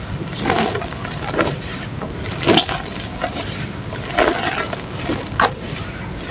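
Chunks of soft mud dirt crumbling and breaking apart in water, with a handful of irregular crunchy cracks, the sharpest about two and a half seconds in and another near the end.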